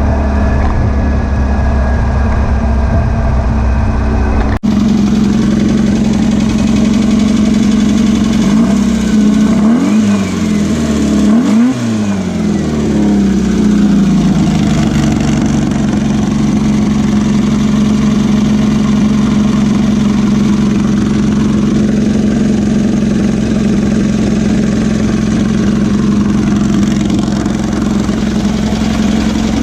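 VW beach buggy's air-cooled flat-four engine running steadily, its idle jet freshly cleared, without the earlier popping misfire. Its revs rise and fall twice about ten seconds in, then settle back to a steady note.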